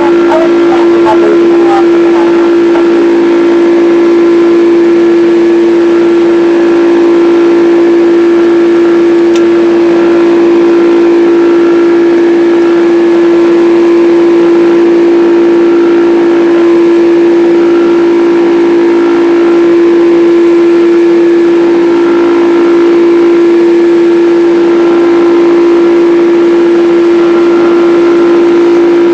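Boeing 767 turbofan engines heard from inside the passenger cabin: a steady, loud drone with one strong hum and fainter steady whines above it.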